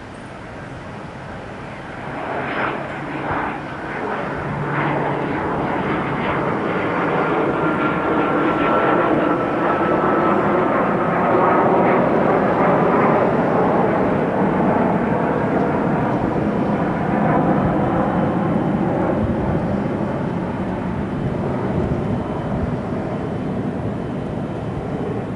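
Boeing 777 twin jet engines passing by: the engine noise builds over about ten seconds to a peak with a faint whine, then slowly fades.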